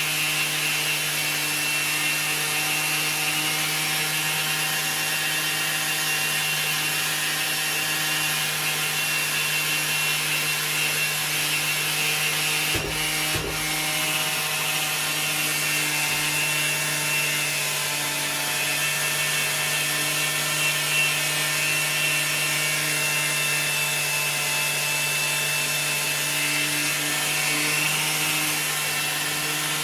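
Makita orbital sander running steadily against a car wheel, a constant motor hum under the rasp of the pad sanding off corroded clear coat. There are two brief knocks about 13 seconds in.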